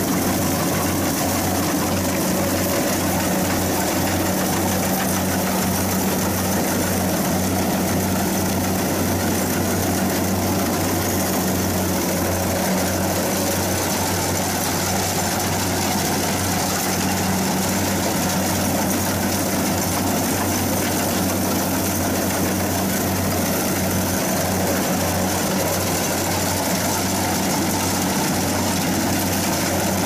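Kubota DC60 combine harvester's diesel engine running steadily while it cuts rice, its low engine hum overlaid by the even rattle and whir of the cutting header and threshing machinery.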